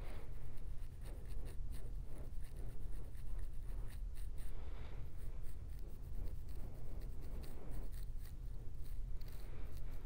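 Fine-tooth comb scratching across a dandruff-flaked scalp through tightly coiled hair: a quick run of short, scratchy strokes that loosen the flakes.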